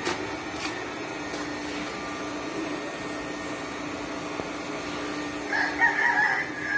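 A rooster crowing once near the end, over a steady low hum.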